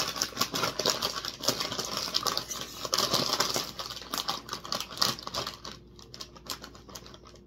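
Crinkly plastic snack bag of waffle crisps being handled and rummaged in: a dense run of crackling that fades away about five and a half seconds in.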